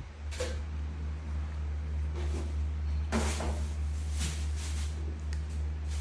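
A pet macaque eating from a plastic spoon: a few short, soft licking and smacking sounds, over a steady low hum.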